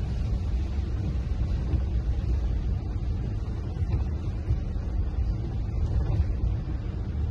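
Steady low rumble of a vehicle driving, road and engine noise heard from inside the cabin.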